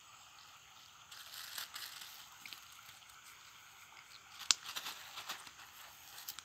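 Nylon cast net rustling and crackling as small fish are picked out of its mesh by hand, with a sharp click about four and a half seconds in.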